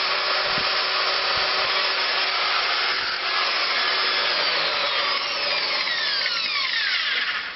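Home-made angle grinder with a rewound 12 V battery motor running at full speed, a steady loud whir. From about five seconds in its whine falls in pitch as it spins down, and it cuts off near the end.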